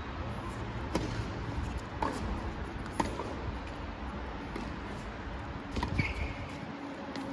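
Tennis ball knocks: sharp single impacts about once a second, three in a row, then two more close together near the end, over a steady background hiss.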